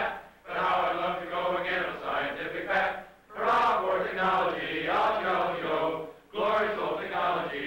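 A group of men's voices chanting together in unison, in phrases of about three seconds with brief pauses between them.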